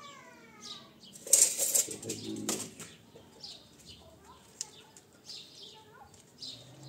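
Steel tape measure retracting: a fast whirring rattle for about a second and a half, ending in a sharp clack as the tape snaps home.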